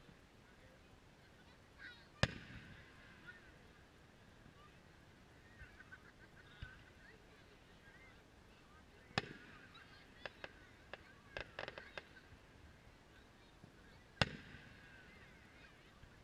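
Distant aerial fireworks: three sharp booms of shells bursting, about two, nine and fourteen seconds in, each with a rolling echo. Between the second and third comes a quick run of smaller pops and crackles.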